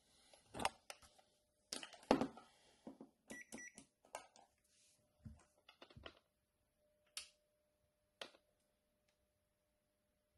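Handling of a charger circuit board and bench tools: light clicks, taps and knocks, the loudest about two seconds in. Two short high electronic beeps come about three and a half seconds in.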